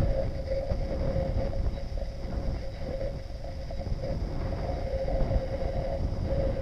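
Wind buffeting the camera's microphone: an uneven low rumble over the wash of surf, with a steady mid-pitched hum underneath.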